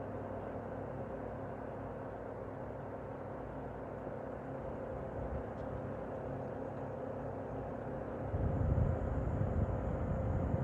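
Steady mechanical hum with a constant tone over even noise; a louder, deeper rumble joins about eight seconds in.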